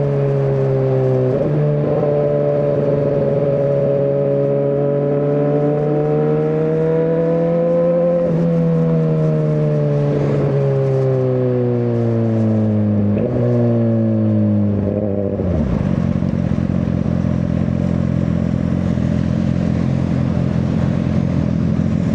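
Suzuki GSX-R1000R's inline-four engine heard from the rider's seat. Its pitch rises and falls, with sudden steps at gear changes about 1, 10 and 13 seconds in. About 15 seconds in it drops to a lower, steady running note.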